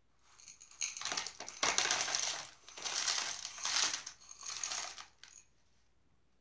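Small gravel pouring from a glass bowl into a flower pot: a dense rattle of pebbles that comes in several surges as the bowl is tipped, stopping about five seconds in.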